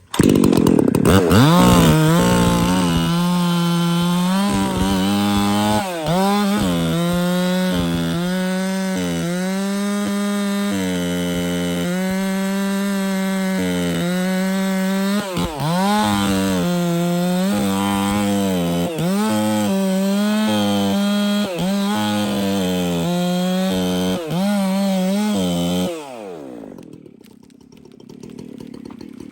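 Chainsaw cutting into a big tree at full throttle, its engine note dipping briefly over and over as the chain bites into the wood and then picking back up. About 26 seconds in the throttle is released and the engine drops away to a much quieter level.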